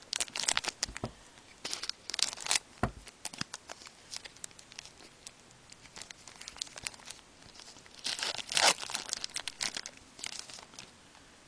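Foil wrapper of a Pinnacle hockey card pack being torn open and crinkled by hand, in irregular crackles, loudest about eight seconds in.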